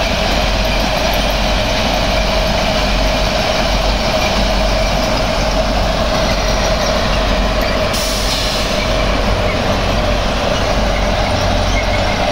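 Railway ballast cleaning machine running steadily at work, a continuous loud mechanical drone with a steady mid-pitched tone. A short hiss cuts in about eight seconds in.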